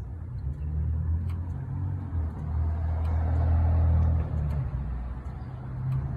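A car's engine running with a low rumble, building to its loudest about four seconds in, then easing off.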